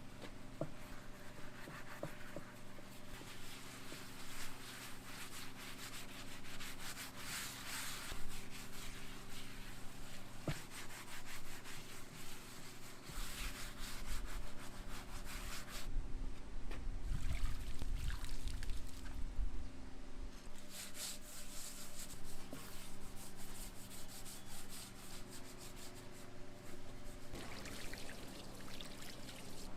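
Irregular rubbing and scraping, like hand sanding or polishing, over a steady hum of several low tones. A low rumble joins in about halfway through.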